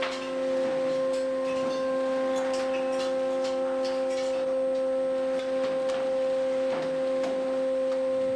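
Steady whine of a fishing vessel's deck machinery, holding one pitch with a few higher tones above it, with scattered clicks and knocks over the top.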